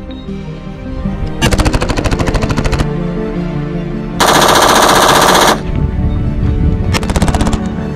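Select-fire AR-15 short-barreled rifle in 5.56mm, fitted with a 3D-printed Inconel muzzle brake, firing on full auto at about 700 rounds a minute. There are three bursts: a rapid string about a second and a half long starting about a second and a half in, a louder, denser burst near the middle, and a short burst near the end.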